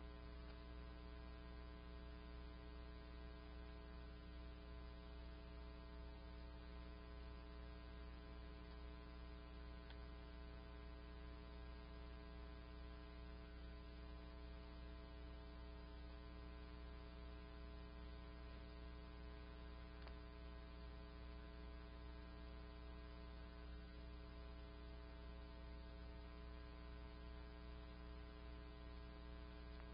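Faint, steady electrical hum with many evenly spaced overtones, unchanging throughout.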